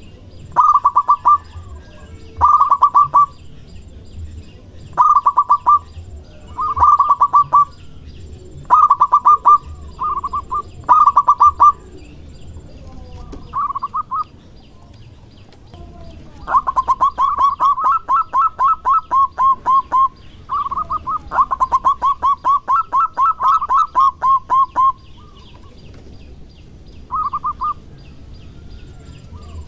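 Zebra dove (perkutut) singing: short bursts of rapid staccato cooing notes, then, past the halfway point, two long rolling runs of quick notes lasting several seconds each.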